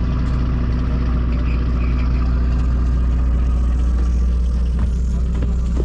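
A fishing boat's engine running steadily, a deep continuous drone with a low hum beneath it, as the boat moves off to a new fishing spot.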